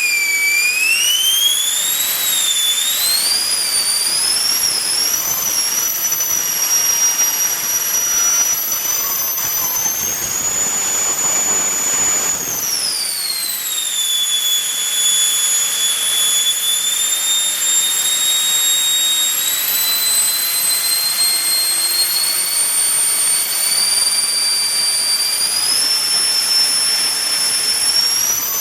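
JP 120 mm all-metal electric ducted fan running on 14S power, giving a loud high-pitched whine. The pitch climbs unevenly over the first dozen seconds to a peak as the throttle is pushed up, drops sharply back about halfway through, holds steady, and steps up again near the end.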